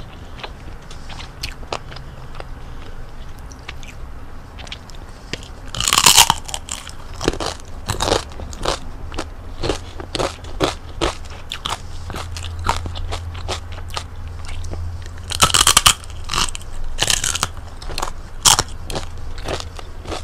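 Bites into crispy deep-fried chicken-skin chicharon: two loud crunching bites, about a third and three quarters of the way through, each followed by crunchy chewing.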